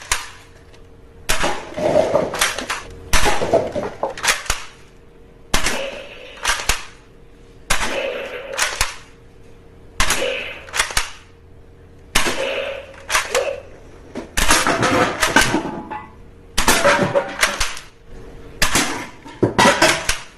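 Toy guns firing, in short bursts of a few rapid shots, a burst about every two seconds.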